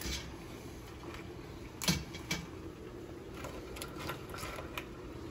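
Hard blue crab shells clicking and clacking as the crabs are picked up and packed into a stainless steel steamer pot: a few light clicks and one sharper clack about two seconds in, over a faint steady hiss.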